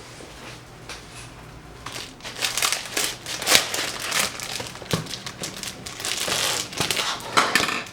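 Something crinkly being handled close up: irregular crinkling and rustling, faint at first, then louder and denser from about two seconds in.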